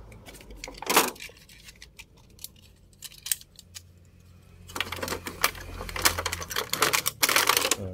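Small hard-plastic toy handling: a knock about a second in and a few light clicks. Then from about halfway through comes a dense run of crackling and clicking as a toy box's plastic packaging and tray are handled and opened.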